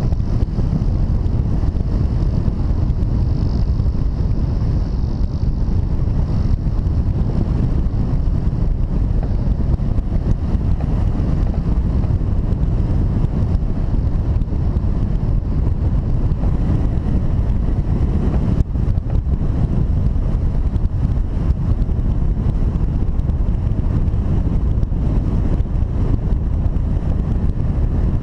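Steady low rumble of wind rushing over the microphone of a camera mounted on a hang glider in flight.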